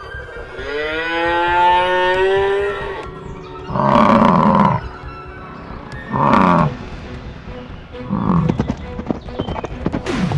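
Cartoon cow and bison calls: a long moo rising in pitch, then three shorter, harsher bellows about two seconds apart, the last one softer.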